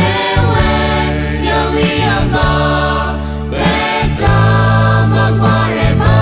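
A choir singing a slow, hymn-like song in parts, over a bass line and a steady soft beat.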